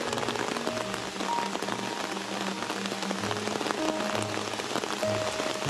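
Heavy rain falling steadily, a dense hiss of countless drops, with slow background music of held notes under it.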